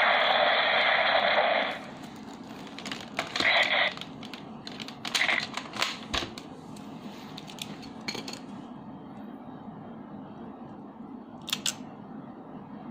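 Toy gun sound effect from a DX Gaburevolver's small speaker, a loud rushing burst that cuts off about two seconds in, followed by scattered plastic clicks and short rattles as the toy and its Zyudenchi pieces are handled.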